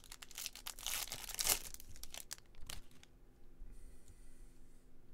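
Crinkling and tearing of a foil baseball card pack wrapper, densest and loudest in the first three seconds, then dying down to a few faint clicks of card handling.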